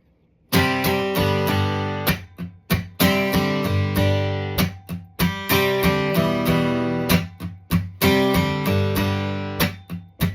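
Acoustic guitar strumming the song's opening chords, starting about half a second in, with brief breaks at the chord changes.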